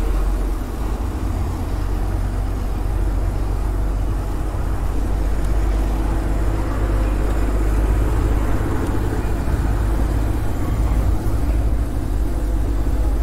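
Steady wind noise on the microphone of a camera on a moving road bike, a deep continuous rumble, mixed with the noise of city traffic and passing vehicles.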